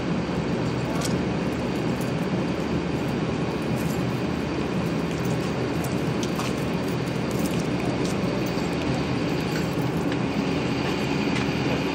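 Steady low rumble of an idling vehicle engine, with a few faint clicks over it.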